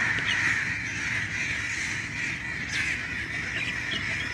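Crows cawing repeatedly over a steady high-pitched chorus of calling birds.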